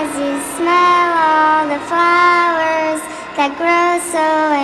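Music: a woman's voice singing long held notes that slide gently between pitches over an electronic track, with a few short crisp hits.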